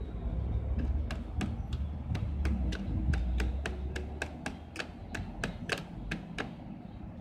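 Rapid, regular mechanical clicking, about four clicks a second, over a low hum that fades out partway through.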